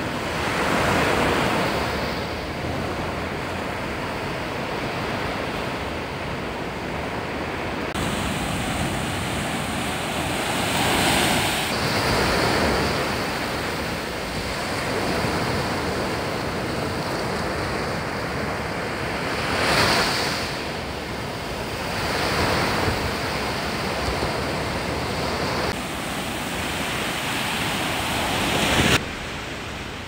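Sea waves breaking and washing up a sandy beach, a steady surf that swells louder as each wave comes in, every few seconds. The sound drops off sharply near the end.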